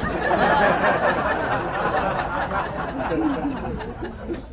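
Two young women laughing and giggling together, overlapping, growing quieter toward the end.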